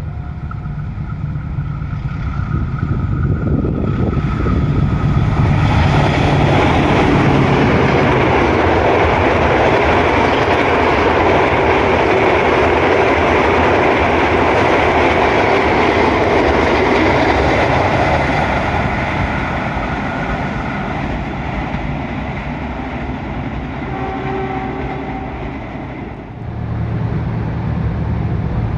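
Diesel-hauled passenger train passing at speed, about 100 km/h: the rumble and wheel-on-rail noise build to a loud rush about five seconds in, then fade after about nineteen seconds. A steady horn-like tone sounds in the first few seconds.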